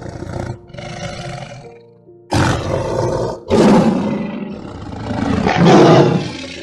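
A large animal roaring: two shorter rough calls, then three long loud roars, over background music.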